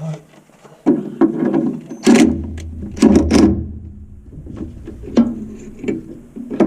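Knocks and clatter of metal parts and tools as an air dryer is bolted onto a bus's chassis bracket, with a few sharp bangs, the loudest about two and three seconds in.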